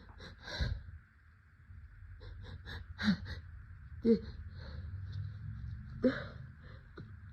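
A person with a cold hitching before a sneeze: a string of short, wheezy gasping breaths, with sharp voiced catches loudest about 3, 4 and 6 seconds in.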